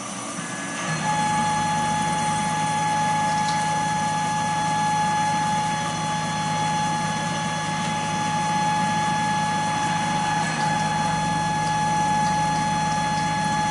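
Tormach 770 CNC mill's spindle running at a steady pitched whine while an end mill cuts the top rear of a Glock 26 Gen 5 slide for an optic dovetail, with flood coolant pouring over the cut. The sound builds over the first second, then holds steady.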